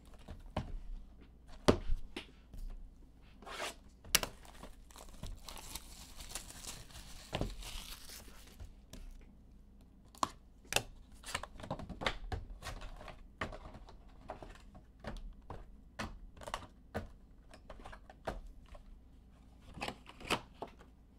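Plastic wrapping torn and crinkled as a sealed box of baseball cards is opened, with many light taps and clicks of cardboard being handled. The tearing is strongest about six to eight seconds in.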